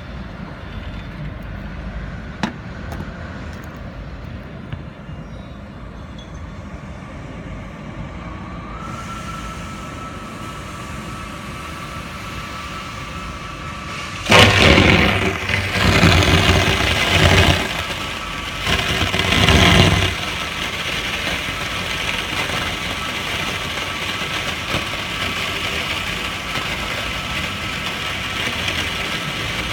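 Water jet from a 100-litre-a-minute test nozzle spraying onto an explosion-proof junction box, with a pump running. A steady tone and hiss come in about a third of the way through. Midway there are a few loud surges of spray, and then a steady loud hiss of water.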